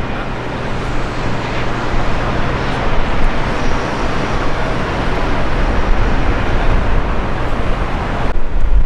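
Jet engines of an Airbus A319 airliner running as it rolls on the ground: a steady broad roar with a low hum under it and a faint thin whine around the middle. It cuts off abruptly near the end.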